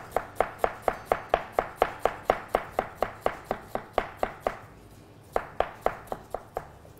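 Kitchen knife slicing an onion on a plastic cutting board: a steady run of chops, about four a second, then a short pause a little past halfway and a few more chops.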